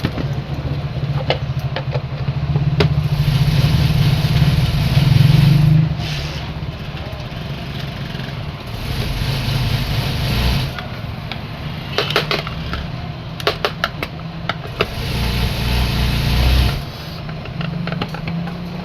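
A small electric motor, such as a juicer's, run in several surges of a few seconds each over a steady low hum, with scattered clicks and knocks.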